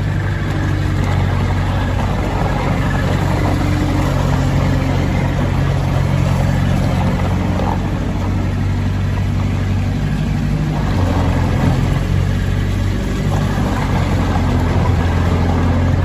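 Bobcat S750 skid steer loader's 85 hp pre-emissions Kubota diesel engine running steadily while the loader drives and turns, its pitch shifting slightly with throttle and load.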